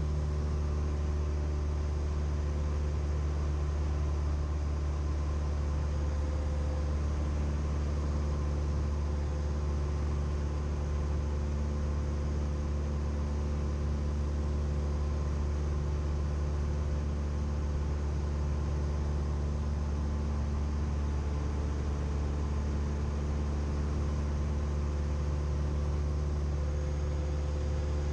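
Steady drone of a Cessna 172M's four-cylinder Lycoming O-320 engine and propeller at constant power, heard inside the cabin, with a deep hum and an even rushing noise of air over the airframe.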